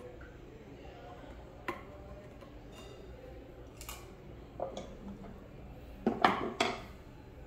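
Metal hand tools and small rifle parts being handled on a wooden table: a few scattered clicks and clinks, then three louder knocks close together about six seconds in.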